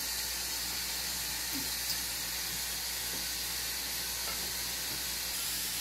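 A steady, even hiss that holds at one level throughout, with a faint voice briefly audible about one and a half seconds in.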